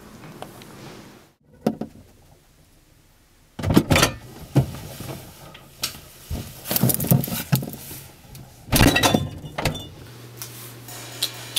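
Irregular knocks and clattering in several loud bursts as things are handled and shifted about inside a refrigerator, with a steady low hum near the end.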